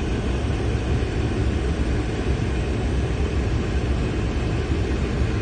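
Toyota Land Cruiser Prado's engine running with a steady low rumble as it drives into a river crossing.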